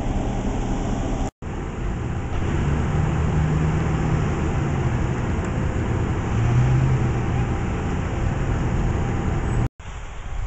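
Steady diesel rumble of fire engines running at a fire scene, with a low hum under broad noise. The sound cuts out abruptly twice.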